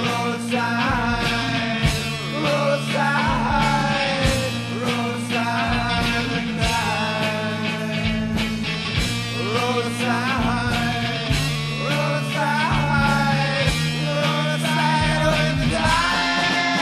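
Rock band playing an instrumental passage with no vocal lines: a lead melody full of pitch bends and wavering notes over steady bass and drums.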